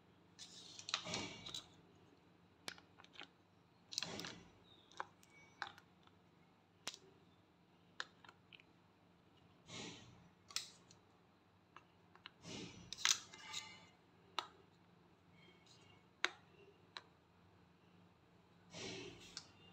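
Coloured plastic stick-lids being picked up and pressed onto the cups of a plastic popsicle mould: light, irregular plastic clicks and short clattering rattles as the pieces are handled and snapped into place.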